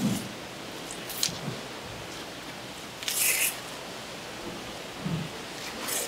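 Handling sounds of a shark being skinned on a plastic cutting board: a few short rasping scrapes, the loudest about three seconds in, and soft thumps, over a steady hiss.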